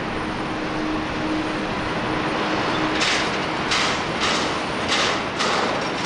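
Boeing 777-300ER's GE90-115B jet engines running, a steady roar. About halfway through, a regular clatter of short strokes, about two a second, starts over it.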